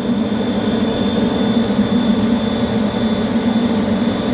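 Industrial air compressor running steadily: a constant low hum with a thin, steady high-pitched whine over it.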